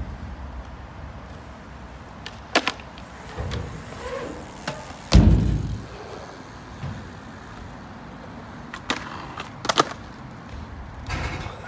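BMX bike riding skatepark ramps: tyres rolling with a low rumble, broken by a few sharp clicks and knocks from the bike. The loudest sound is one heavy thump about five seconds in.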